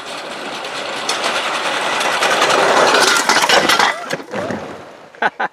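A small home-made rail wagon with a rider rolling down a narrow-gauge field railway, its wheels rattling and clattering on the steel track. The clatter grows louder as it comes closer, then falls away, with a few separate sharp clicks near the end.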